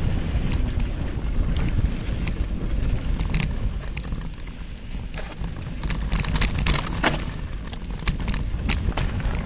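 Wind noise on the camera's microphone and the low rumble of a mountain bike's tyres on a dirt singletrack, with frequent sharp rattles and clicks from the bike over the rough ground, thickest about six to seven seconds in.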